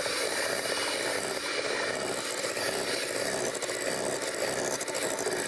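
Electric hand mixer running steadily, its beaters whipping fish roe spread as oil is beaten in to emulsify it.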